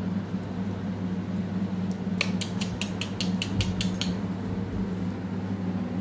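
A steady low hum, with a quick run of about ten sharp clicks, some six a second, starting about two seconds in and stopping at about four seconds.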